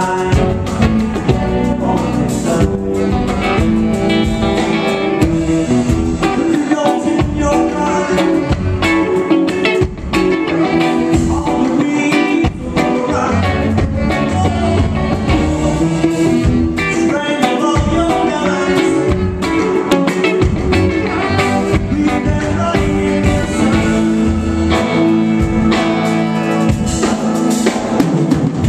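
Live band music, loud and continuous: hollow-body electric guitar, saxophone, bass guitar and drum kit playing together with a steady beat, recorded from the crowd.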